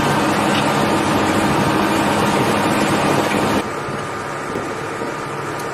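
Steady engine drone with a low hum running under a wide rushing noise. It drops to a quieter level about three and a half seconds in.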